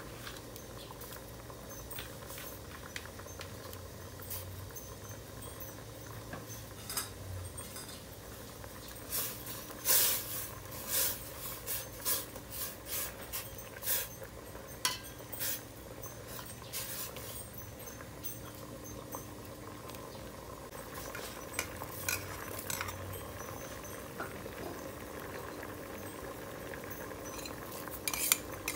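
A ladle stirring soup in a stainless steel pot, knocking and scraping against the pot's side in a run of sharp clinks through the middle, with a few more later, over a steady background hum.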